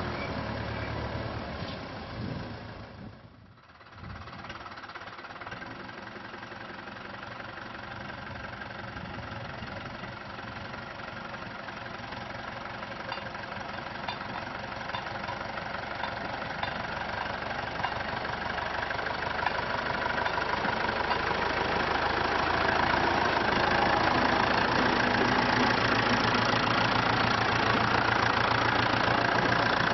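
SAME Saturno farm tractor's air-cooled diesel engine running, with a brief drop about three seconds in, then growing steadily louder toward the end as the tractor comes close.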